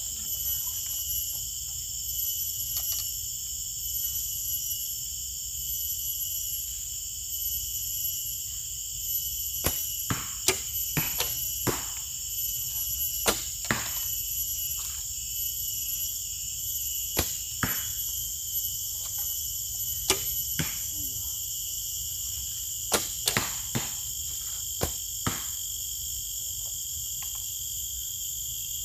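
Several archers shooting traditional horsebows: sharp snaps of bowstrings and arrows in scattered clusters from about ten seconds in, often two or three close together. A steady high insect drone runs underneath.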